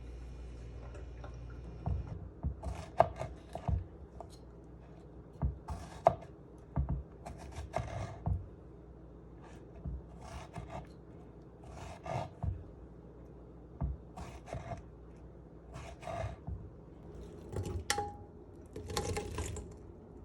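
Kitchen food-preparation sounds: a run of short scrapes and light knocks, roughly one a second, starting about two seconds in. Before them a faint steady hum stops.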